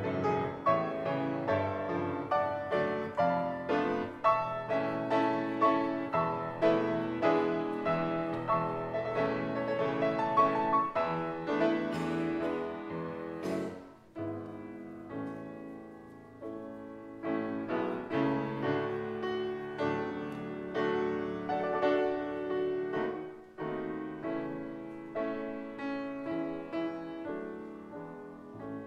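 Grand piano playing a piece, with a quieter, softer passage starting about halfway through.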